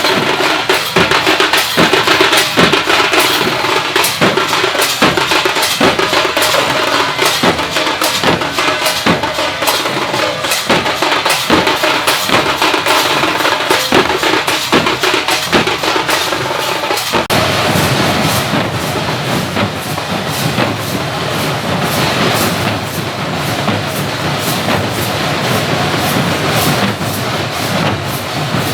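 Loud Harinam devotional music of a Matua group: rhythmic drumming with dense percussion strikes throughout. The texture of the playing changes about seventeen seconds in.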